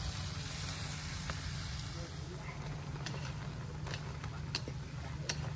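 Sliced pork tenderloin sizzling as it is stir-fried in a wok over a fire, with a steady hiss over a low rumble. Chopsticks click against the pan now and then.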